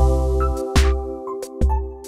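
Electronic background music with held chords, a bass line and a drum hit about every 0.8 seconds.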